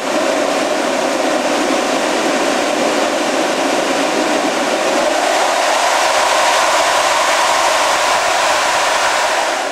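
Mitsubishi HF-KP rotary servo motors spinning gears at high speed, a loud, steady mechanical noise that starts abruptly.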